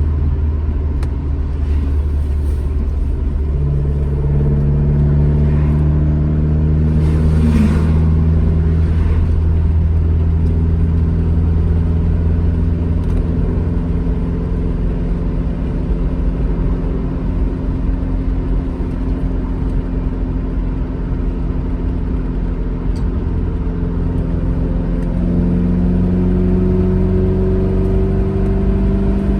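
Alfa Romeo GT Junior's twin-cam four-cylinder engine running under load while driving, its note holding fairly steady and stepping up in pitch about three seconds in and again near the end as it pulls harder. A brief rush of noise comes about seven seconds in.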